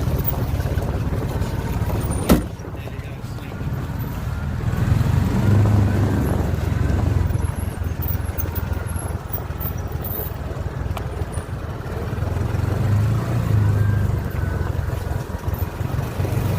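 ATV engine running, rising and easing as the throttle changes, with one sharp knock about two seconds in.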